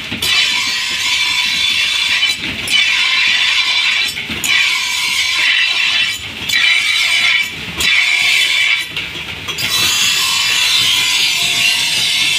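Steel sword blade being ground on a motor-driven grinding wheel to put an edge on it: a loud, harsh grinding hiss over a steady whine. The blade is drawn across the wheel in repeated passes, with brief dips about every two seconds, then steady grinding near the end.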